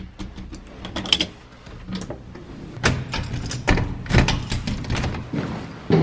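A door being shut and locked with a key: a run of sharp clicks and knocks from the keys, latch and lock, thickest a few seconds in.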